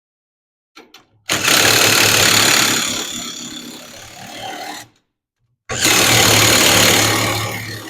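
Power wrench with a 5/8 deep-well socket running nuts down onto the front spring hangers. It runs twice, about three and a half seconds and then two seconds, each run starting loud and easing off, with a couple of small clicks as the socket goes on just before the first.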